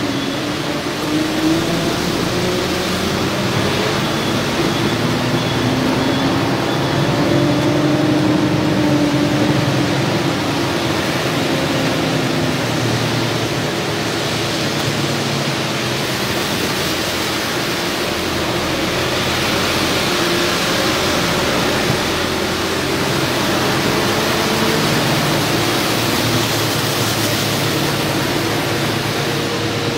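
Vehicle engines running and slowly changing pitch on a flooded street, over a steady rushing noise of water.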